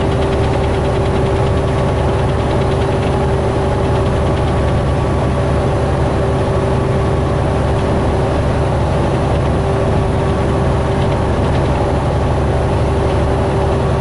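Inside the cab of a semi truck at highway speed: a steady engine drone and road rumble, with a constant hum running under it.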